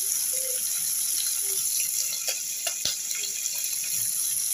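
Diced bacon frying in its own fat in a steel pan: a steady sizzle with a few small pops.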